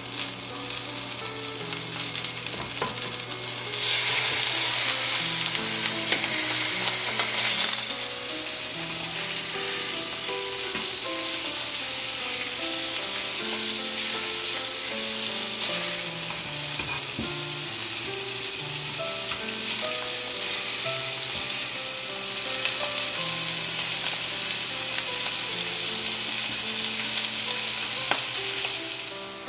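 Thin slices of beef sirloin and asparagus sizzling in a frying pan. The sizzle is louder from about four seconds in for a few seconds, and again over the last several seconds. Soft background music carries a melody underneath.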